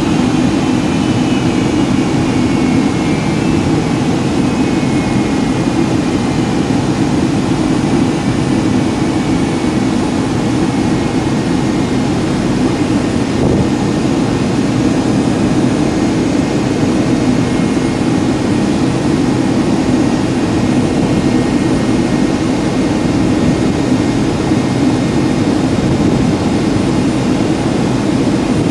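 Cabin noise inside a Boeing 757-200 in flight: a steady roar of engines and airflow. Over the first several seconds a faint high whine falls slightly in pitch.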